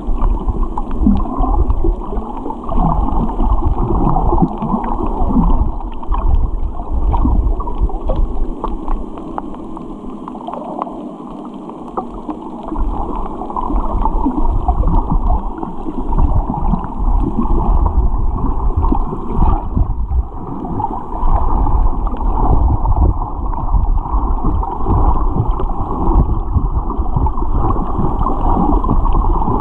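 Muffled, rushing underwater noise of water moving around a submerged camera, steady apart from a few seconds near the middle where it eases off.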